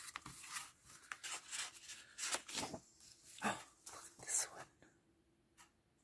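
Sheets of patterned scrapbook paper rustling as they are handled and turned over by hand, in several short papery bursts that die away about a second before the end.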